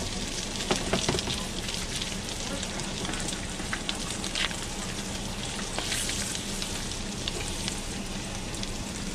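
Steelhead fillet with a crumb coating frying in butter in a nonstick pan: a steady sizzle with scattered small pops and crackles.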